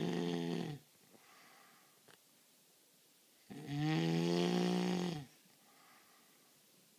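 A person snoring loudly. One steady-pitched snore trails off under a second in, and another starts about three and a half seconds in and lasts nearly two seconds, with soft breaths between them.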